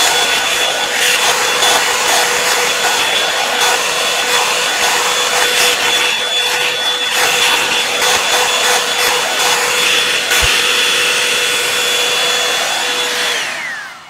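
Revlon One-Step Hair Dryer and Styler (paddle-brush model) running on its highest setting: a steady rush of air with a high motor whine. Near the end it is switched off and the whine falls in pitch as the motor winds down.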